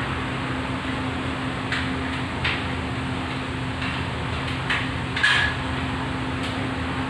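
A handful of short clicks and clinks from hands working on a ceiling fluorescent light fixture, the loudest about five seconds in with a brief ring, over a steady background hum.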